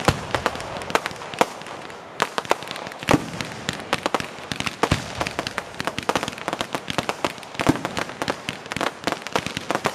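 Aerial fireworks bursting: a rapid, irregular string of bangs and crackles, many overlapping, with a few louder reports standing out.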